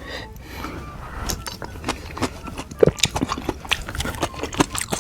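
Close-miked eating sounds: a person chewing with wet, smacking mouth clicks at an irregular pace, one louder smack about three seconds in.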